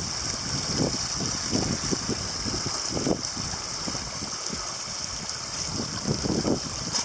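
Small rocky moorland stream running steadily, a constant rushing hiss, with irregular low thuds scattered through it.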